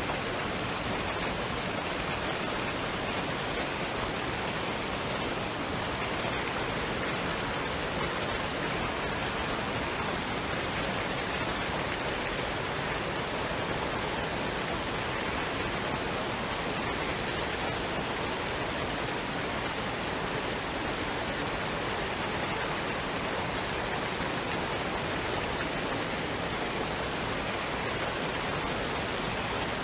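Waterfall and stream water rushing in a steady, unbroken hiss.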